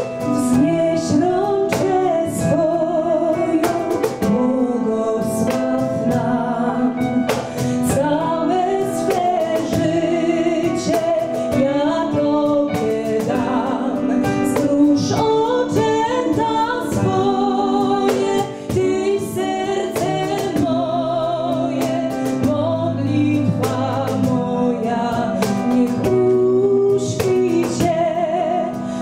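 A woman singing a melody with vibrato, backed by a small band with regular cajón beats.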